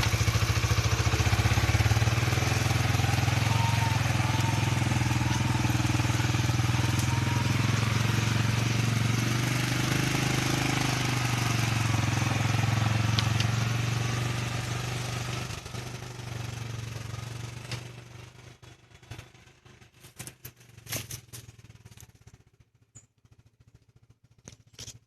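A four-wheel-drive vehicle's engine runs steadily on an off-road trail. About fifteen seconds in it fades away over a few seconds, leaving scattered faint clicks and knocks.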